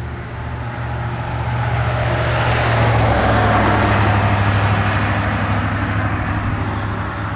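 Road traffic: a vehicle passes, its engine and tyre noise swelling to a peak about three to four seconds in and then fading, over a steady low hum.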